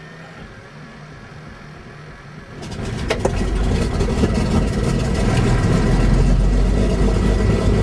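A de Havilland Dove's right-hand Gipsy Queen six-cylinder piston engine being started, heard from inside the cockpit. It turns over quietly at first, fires about two and a half seconds in with a few ragged bangs, then picks up into a steady, much louder run.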